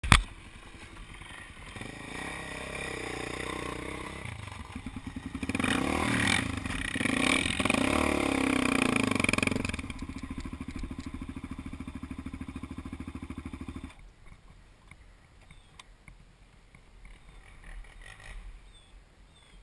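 Off-road ATV engine running and revving, loudest from about five to ten seconds in with the pitch climbing and falling, then running at a steady note before stopping abruptly about fourteen seconds in.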